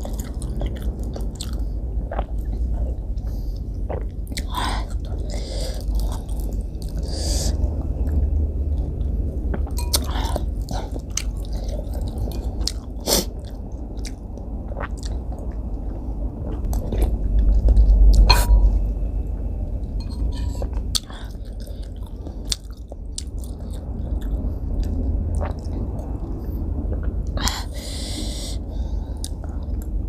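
Close-miked chewing and slurping of soup, with metal spoon and fork clicking against a ceramic bowl now and then.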